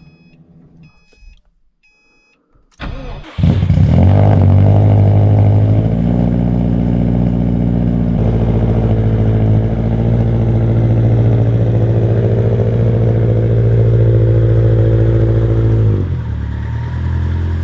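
A few short electronic beeps, then the Subaru STI's turbocharged flat-four cranks and catches about three seconds in. It flares briefly, settles into a steady idle, and drops to a lower idle near the end.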